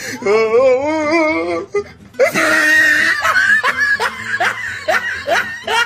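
A person laughing hard: a long wavering laugh, a loud high burst about two seconds in, then a run of quick ha-ha pulses, two or three a second.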